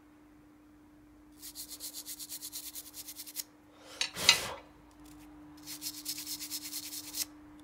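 Rapid, even scrubbing strokes on a phone's circuit board, about seven a second, in two runs: the freshly soldered SIM card slot area being cleaned so it won't short-circuit. Between the runs, about four seconds in, comes one louder scrape or knock, and a faint steady hum runs underneath.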